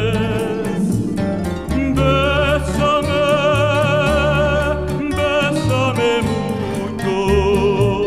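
Background music: a slow ballad, its melody in long, wavering held notes over a steady bass.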